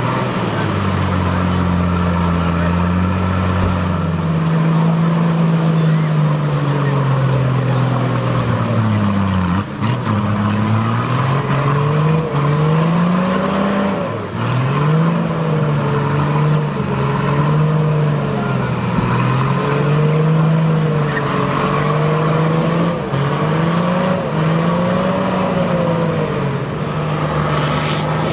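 A 4x4 off-road vehicle's engine running steadily for a few seconds, then revved up and down again and again, about once every second or two, as the truck works its way over the course.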